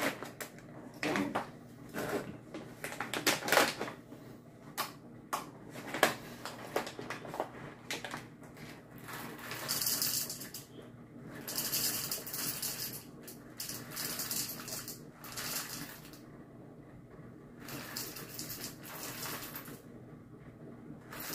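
Coffee being tipped out of a bag into a cup, with two longer stretches of rattling, hissing pour in the second half. Before that come scattered knocks and crinkles as the bag is handled.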